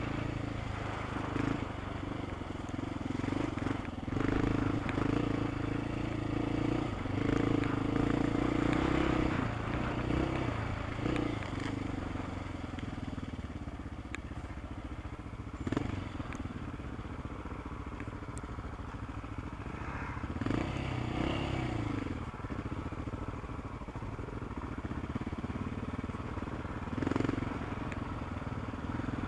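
Off-road motorcycle engine revving up and down as it is ridden hard along a rough dirt trail. It is loudest in the first ten seconds, with a few sharp knocks and clatter from the bumps.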